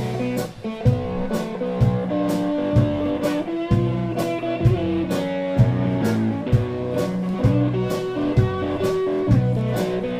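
Live blues band playing an instrumental stretch: electric guitar holding and bending single notes over bass and drums, with the drums keeping a steady beat of about two hits a second.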